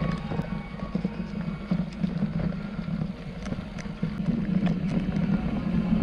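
Mountain bike rolling over a rough dirt trail: a steady tyre rumble with scattered rattles and knocks from the bike, under faint background music.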